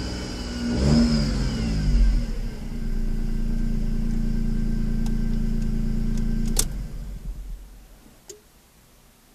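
Opel Corsa B's 1.0-litre three-cylinder X10XE engine revved briefly twice, then running steadily with a thin high whine, until a click about six and a half seconds in when it is switched off and runs down. The noise comes from an unexplained bearing fault that the owner thinks could be the water pump or the alternator.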